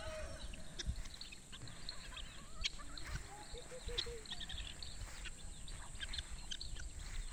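Chickens calling faintly: chicks peeping in short high chirps throughout, and a hen giving four short clucks a little over three seconds in.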